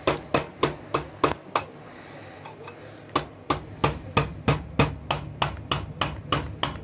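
Ball-peen hammer tapping 3D-printed V-slot covers into the aluminium extrusion slot of an Ender 3 printer frame: a run of sharp light strikes, about three to four a second, with a pause of about a second and a half near the middle. The covers were printed oversized at 105% scale, so they have to be driven in rather than slid in.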